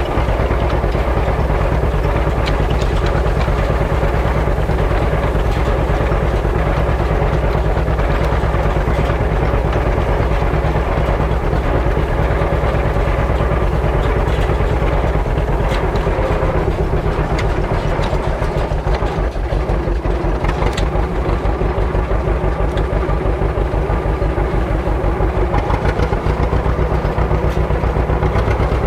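Farm tractor engine running steadily with an even, low pulsing beat.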